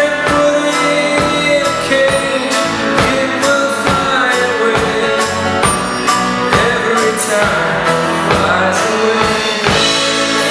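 Live rock band playing, with a steady drum beat under guitar and a melodic line that bends in pitch.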